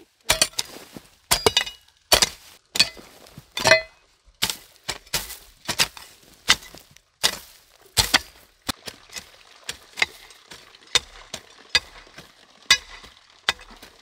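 A run of sharp strikes, loud and uneven at about two a second, some with a brief ring; after about eight seconds they come quicker and softer.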